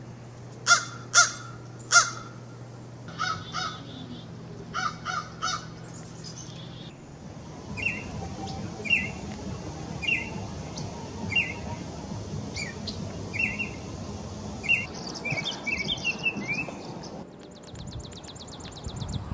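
A crow cawing: three loud caws about a second in, then two fainter runs of three caws. After about seven seconds, short high calls from a small bird come roughly once a second, closer together near the end.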